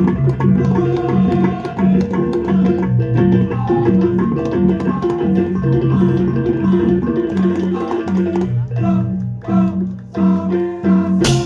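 Balinese balaganjur gamelan playing: low gong-chime notes alternate in a steady beat under many sharp clashing cymbal strokes. About eight and a half seconds in, the music breaks into short stop-start accented phrases.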